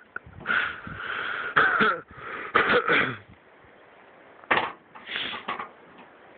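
Wheezy, breathy laughter in bursts for about three seconds, then two short breathy bursts a little later.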